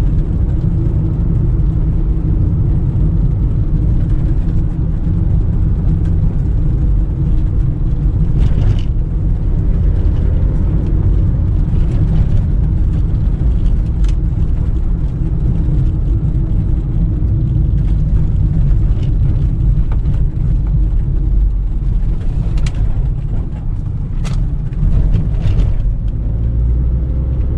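Fiat Doblo 1.8 four-cylinder petrol engine and tyres heard from inside the cabin while driving in town: a steady engine and road rumble, with a few short knocks now and then.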